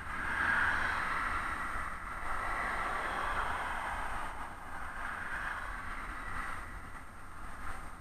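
Road traffic heard from a moving bicycle: the tyre and engine noise of passing cars, loudest as an SUV overtakes close by and then fading, over a constant low rumble of wind on the microphone.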